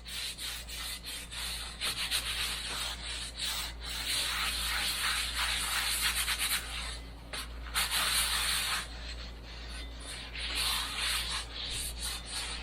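Paper towel wiping oil over cast iron, a Dutch oven and its lid being given a thin coat for seasoning, in irregular repeated rubbing strokes.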